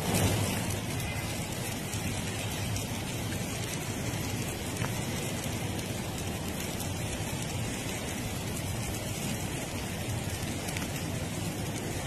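Steady, even hiss of wintry precipitation falling on snow-covered cars and ground, with no distinct events.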